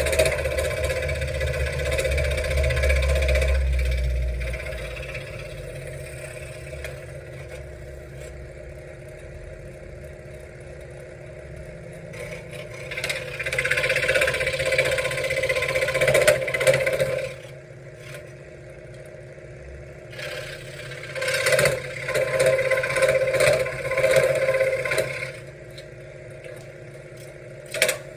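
Benchtop scroll saw running and cutting wood in stretches. It is louder for a few seconds at the start, again around the middle and again near the end, with the steady motor hum quieter in between.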